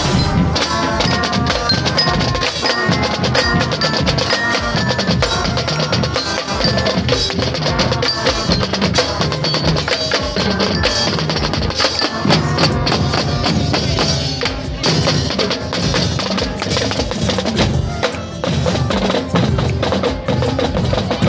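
Percussion-led music with drums and bright, bell-like struck metal tones, playing without a break.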